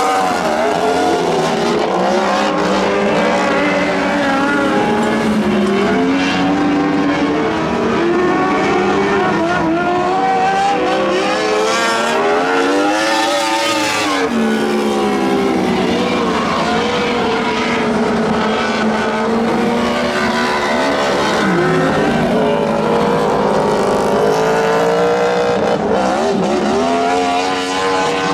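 A pack of lightning sprint cars racing on a dirt oval, several engines running at once and rising and falling in pitch as they go through the turns and down the straights. About halfway through, one car sweeps past close by, its pitch rising and then falling.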